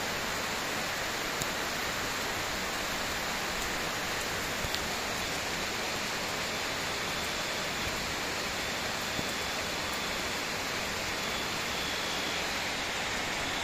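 Heavy rain falling steadily: an even hiss with a few faint ticks.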